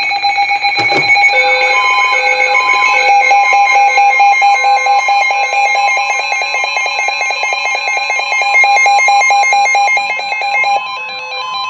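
NOAA Weather Radio's steady warning alarm tone near 1 kHz, with several weather-radio receivers' alert alarms beeping over it at different pitches, one pulsing rapidly and another about once a second. It is the alert that comes before a newly issued severe thunderstorm warning is read.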